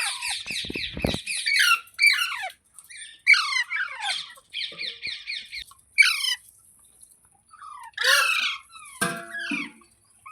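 Rose-ringed parakeet calling: rapid runs of shrill, repeated chirps and trills broken by harsher squawks.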